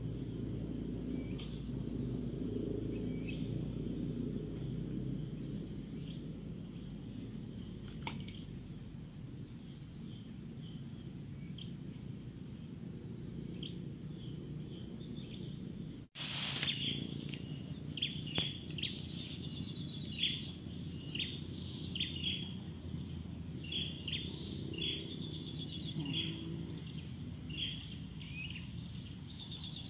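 Outdoor riverbank ambience: a steady low rumble under the chirping of small birds. The chirps are sparse at first, then come thick and fast after a brief gap about halfway through.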